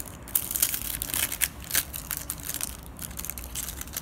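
Plastic wrapper of an Adrenalyn XL football trading-card pack crinkling and tearing as it is opened by hand, a dense run of irregular sharp crackles.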